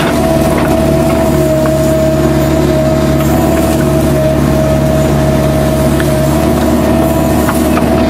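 Kubota U-45 mini excavator running steadily, its engine note carrying a high whine over it. A lower hum in the engine sound drops out about six seconds in.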